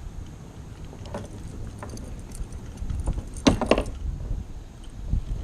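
A quick cluster of clattering knocks and rattles in a kayak about three and a half seconds in, with a few fainter clicks earlier, over a low rumble of wind on the microphone.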